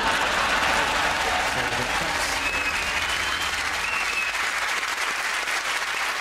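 Studio audience applauding steadily, dense clapping throughout.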